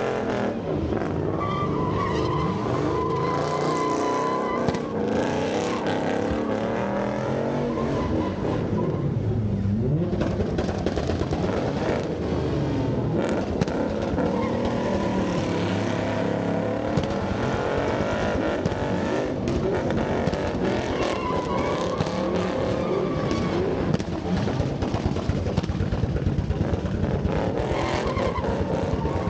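Ford Mustang spinning donuts: its engine revving up and down over and over while the rear tires spin and screech on the pavement.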